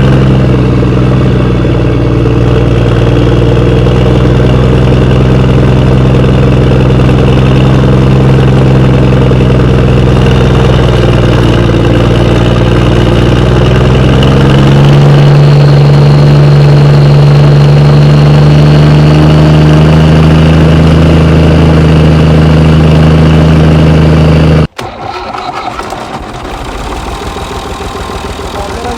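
A vehicle engine running loudly and steadily, rising in pitch about halfway through, then cutting off abruptly near the end, followed by a quieter engine running.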